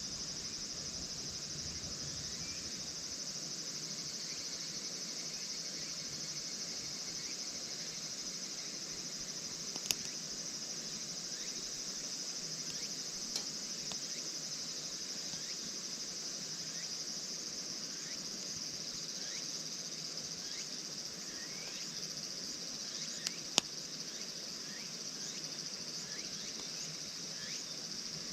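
Steady, high-pitched insect chorus of crickets, with a few faint short chirps over it. Two sharp clicks come about ten seconds in and near the end.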